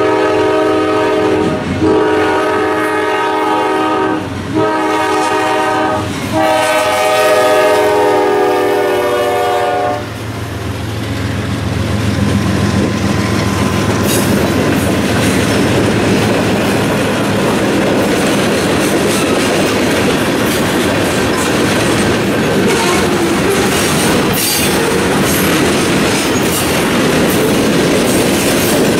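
A CSX diesel freight train sounding its air horn in a long, long, short, long pattern, the grade-crossing signal, with the horn ending about ten seconds in. The train then rolls past close by: engine rumble, then the steady rumble and clickety-clack of freight-car wheels over the rails, with occasional sharp clanks.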